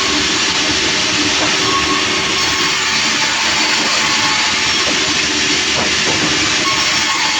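Sawmill running steadily, its saw cutting through a large log with a loud, unbroken hiss and machine drone.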